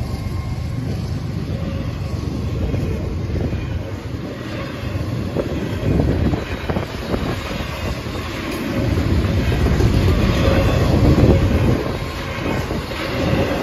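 Double-stack intermodal freight cars rolling past on the rails: a loud, steady rumble of wheels on track with a continual clatter of knocks.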